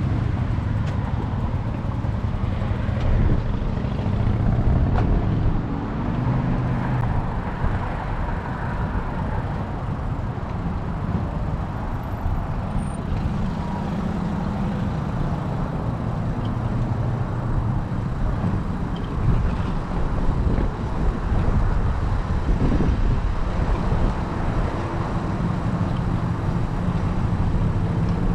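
Wind buffeting the microphone on a moving bicycle: a steady low rumble, with road and traffic noise mixed in.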